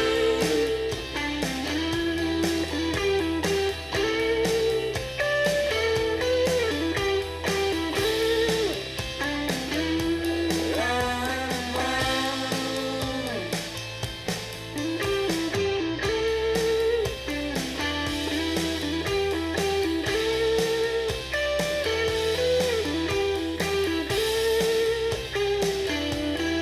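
Recorded music played through an Akkord-201 stereo amplifier and its speakers: an instrumental passage with a lead guitar melody bending in pitch over a steady bass line and beat.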